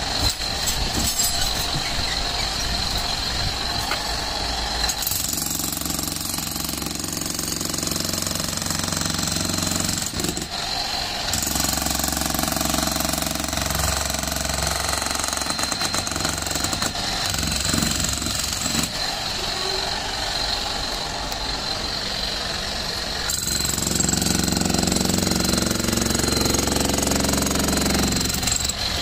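Bosch GSH 11 E electric demolition hammer chiselling concrete: continuous rapid hammering that changes in tone a few times as the bit works through the slab.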